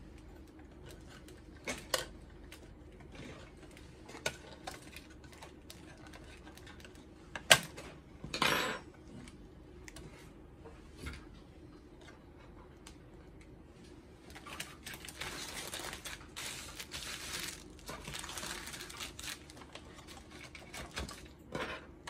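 Sharp plastic clicks and clatter as a Zebra ZC100/300 card printer's feeder assembly is pried apart at its locking tabs and its small parts are handled; the loudest click comes about seven and a half seconds in. From about fourteen seconds, several seconds of rustling as plastic sheeting crinkles under the printer while it is turned over, then one more click near the end.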